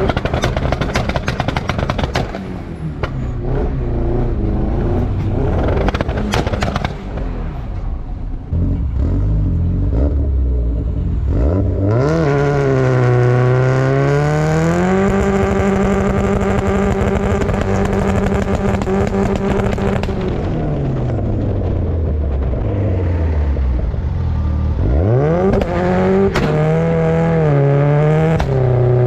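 Turbocharged Mazda Miata four-cylinder heard at the tail of its old exhaust (stock piping into a Jackson Racing muffler) while driving. The first several seconds are rough and noisy. Then the engine note rises under acceleration, holds steady, drops away, and climbs again with stepped changes near the end.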